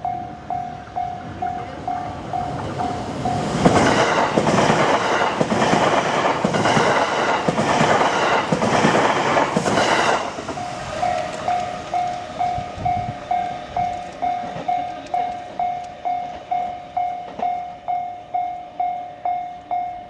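Japanese level-crossing bell ringing about twice a second. A few seconds in, an electric train passes close by, its wheels clacking over the rail joints, and drowns the bell for about six seconds. Once it has gone by, the bell rings on.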